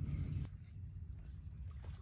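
Wind buffeting the microphone as a steady low rumble, with one faint click about half a second in.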